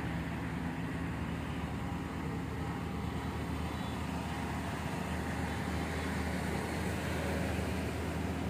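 Maruti Suzuki Baleno hatchback moving slowly past at low speed, its engine running with a steady low hum.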